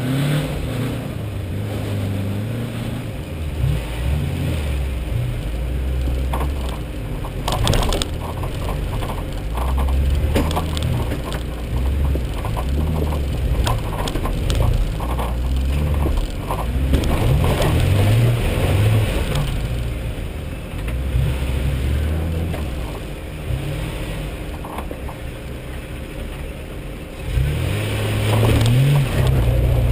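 Off-road four-wheel drive's engine working at low speed up a rocky track, its note rising and falling with the throttle. Through the middle come many sharp knocks and rattles of tyres and body over loose rock.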